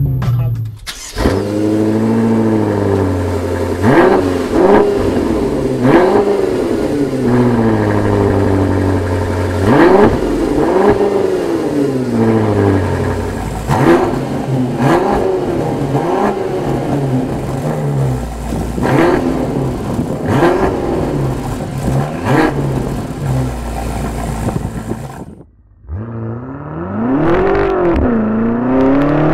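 BMW M5 F10 Competition Pack's 4.4-litre twin-turbo V8 heard at the exhaust, revved again and again in sharp blips that rise and fall about every two seconds. Near the end it switches to a full-throttle acceleration, the engine note climbing steadily with one gear change.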